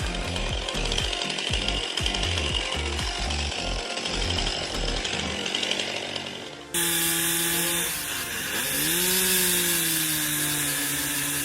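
Background music with a steady beat, then, after an abrupt cut a little past halfway, a chainsaw running steadily, its pitch dipping briefly and rising again.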